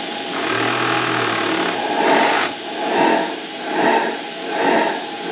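Single-diaphragm gas regulator of a live-steam model boat's boiler, its membrane doubled, oscillating at its regulating pressure, so the gas feed chuffs like a steam locomotive in a swelling rhythm of a little over one pulse a second from about two seconds in. The chuffing comes not from the engine's pistons but from the regulator hunting, which the owner cannot explain.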